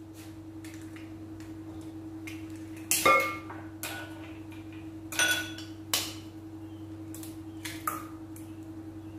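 Eggs being cracked against glass bowls: several sharp taps and shell cracks. The loudest comes about three seconds in and briefly rings the glass. A steady low hum runs underneath.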